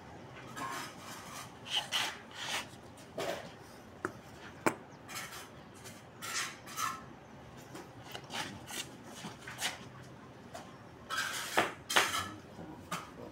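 Mason's trowel working mortar against brick: irregular scraping strokes with a few sharp clicks and taps.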